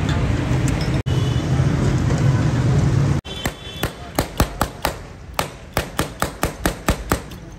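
Loud steady background din with a low hum. It cuts off suddenly about three seconds in, giving way to a quick run of sharp knocks, several a second.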